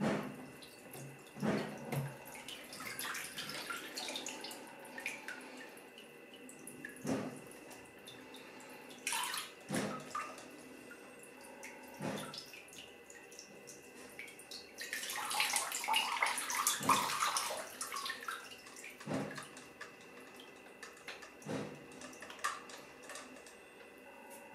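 Water in a plastic crate sloshing, splashing and dripping as a LEGO submarine model is handled and lifted in it, with scattered sharp knocks of plastic. The splashing is loudest and densest for a few seconds just past the middle.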